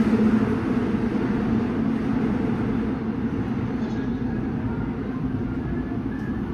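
Subway train running, heard from inside the carriage: a steady low rumble.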